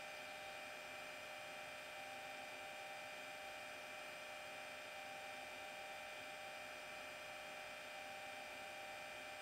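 Bachmann Class 37 model locomotive's DCC sound decoder (SWD Class 37 sound file) playing the idle of the Class 37's English Electric diesel through its small EM2 speaker: a steady, quiet hum with a high, unwavering whine.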